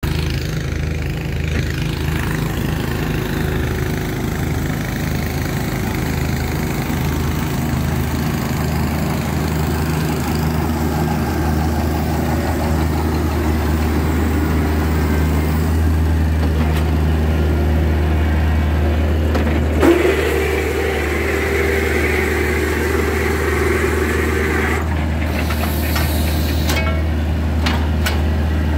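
Horizontal directional drilling rig's engine running steadily with a deep hum. About two-thirds of the way through there is a short knock, then a higher whine for a few seconds, and a few clicks near the end.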